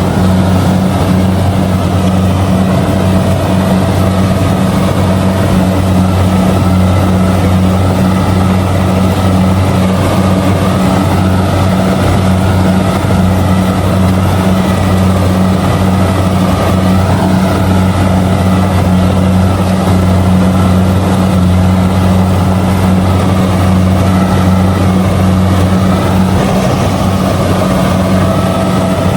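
Kubota DC70G combine harvester's diesel engine and threshing machinery running steadily while harvesting rice, a constant low drone.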